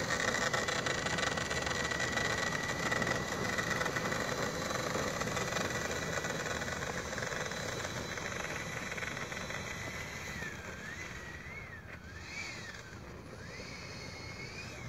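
Electric ducted fan of an RC F-16 model jet running: a steady high whine over a rushing noise that slowly fades as the jet rolls away. In the last few seconds the whine rises and falls several times.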